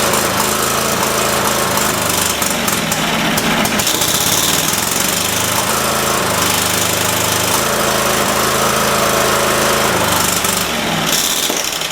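Cub Cadet 3225's 22 hp Kohler V-twin engine running, its speed shifting up and down several times rather than holding steady. That unevenness is the fault being chased, which the owner has put down to a leaking fuel solenoid sucking air and later to a bad coil.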